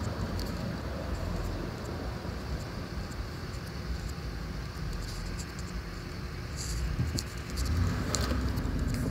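Steady low rumbling background noise, with a few faint ticks near the end.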